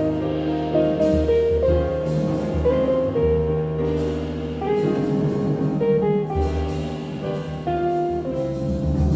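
Jazz quartet playing a slow ballad with long held notes: archtop electric guitar and grand piano over double bass, with light cymbal strokes from the drum kit.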